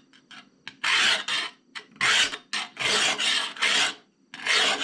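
A coarse 180-grit diamond hone is stroked by hand, file-fashion, along the steel blade of antique Weiss shears. It makes a rasping scrape in about five strokes, each roughly half a second long. The strokes start about a second in and pause briefly near the end.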